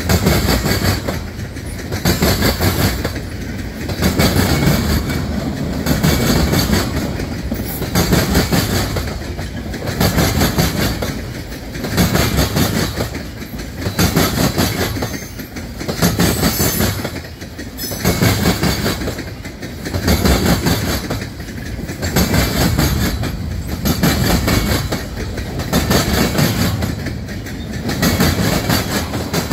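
Freight train cars rolling past, mostly tank cars, their steel wheels clicking over the rail joints; the noise swells about every two seconds as each car's wheelsets go by.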